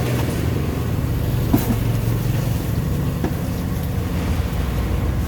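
Steady low rumble of street traffic, with a single sharp click about one and a half seconds in.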